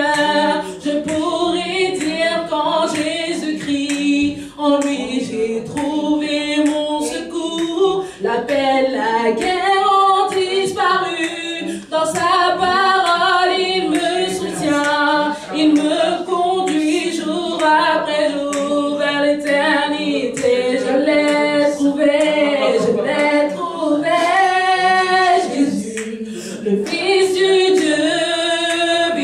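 A woman singing a slow worship song unaccompanied into a handheld microphone. She holds long notes with a wavering vibrato.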